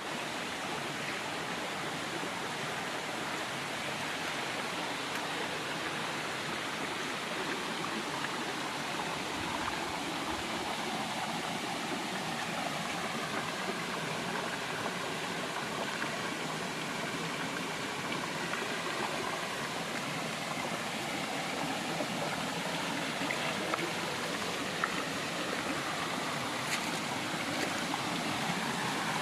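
River water flowing over stones, a steady rushing and gurgling with no let-up.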